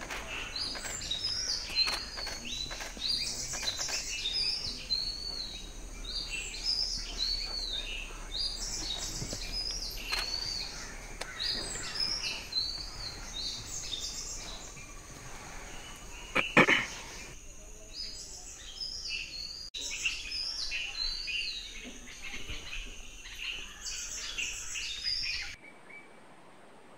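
A chorus of forest birds calling together: many short, high chirping calls repeating over one another, with one louder call a little past halfway. The calls cut off abruptly about a second before the end.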